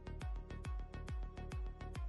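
Background music with a steady electronic beat, a deep kick drum about twice a second with ticking hi-hats between.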